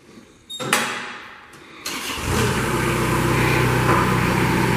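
Kubota diesel engine of a Moffett M5500 truck-mounted forklift starting up: after a brief burst of noise about half a second in, it catches just before two seconds in and settles into a steady run.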